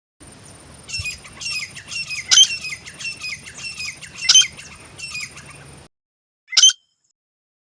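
Grey francolin calling: a run of repeated harsh, falling calls, about two a second over a faint background hiss, which stops abruptly. After a short gap comes one single sharp call.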